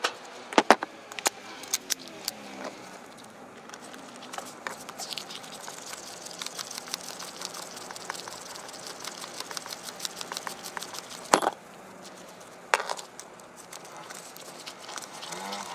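Screwdriver working on a Shimano Crane GS bicycle derailleur, with its small metal parts clicking and knocking over a plastic tub. There are a few sharp clicks at first, then a run of fine scraping ticks, and two louder knocks about two-thirds through.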